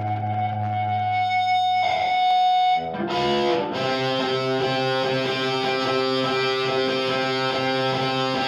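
Distorted electric guitar holding a ringing note, which breaks off about three seconds in; guitar and bass then play a steady, repeating riff.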